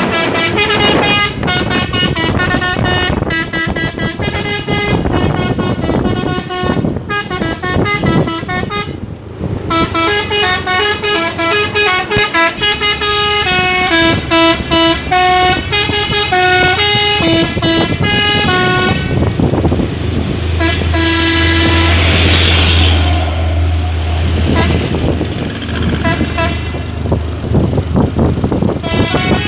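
A dump truck's telolet horn, a multi-trumpet musical air horn, plays a long run of quick tune-like notes that jump from pitch to pitch. A deep engine hum swells in about twenty seconds in as the truck comes by.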